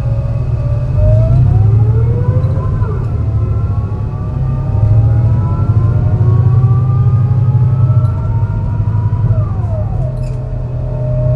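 MAN NL202 CNG bus climbing under load, its ZF Ecomat five-speed automatic gearbox whining in a rising pitch that falls abruptly at two upshifts, about three seconds in and again near the end. Underneath is an uneven engine rumble from a bad misfire.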